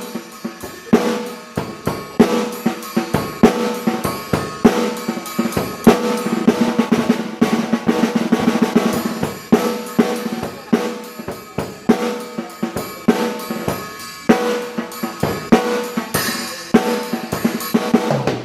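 A 14x5.5 snare drum played on a drum kit in grooves, rolls and rimshots, with kick drum and hi-hat under it. A ringing tone from the drum carries on between the strokes. There is a cymbal crash near the end.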